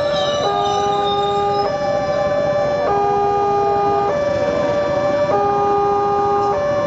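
Wantech railway level-crossing alarm sounding its two-tone warning, the tone switching about every second, over the noise of a passenger train passing slowly through the crossing.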